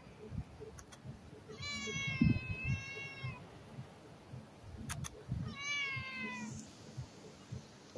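A stray cat meowing loudly for food: two meows back to back about two seconds in, and a third a little before six seconds, each with a slightly falling pitch. Soft low thumps sound underneath.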